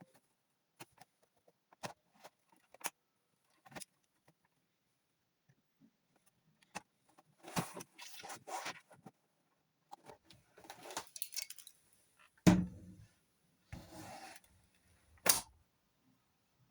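Scattered clicks, taps and rubbing of a laptop's plastic case and small parts being handled, with a few louder knocks in the second half.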